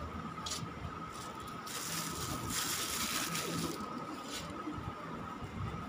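Coriander seeds sprinkled by hand onto loose potting soil: a light rustling patter lasting about two seconds, starting a little under two seconds in.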